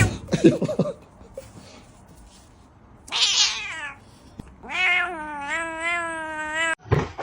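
Domestic cat meowing: a short falling meow about three seconds in, then a long drawn-out meow of about two seconds.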